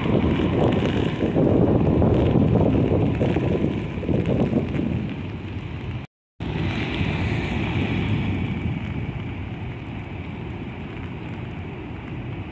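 Wind buffeting the microphone in rain, with an electric multiple unit pulling out on a far track during the first half. After a cut about halfway, a quieter, steadier rumble and hiss of rain.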